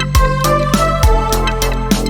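Background music: keyboard melody over a steady beat with a drum stroke about every half second.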